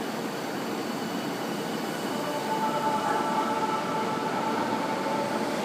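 Electric commuter train at a station platform: a steady rushing noise, with a whine of a couple of steady tones setting in about halfway as the sound grows louder.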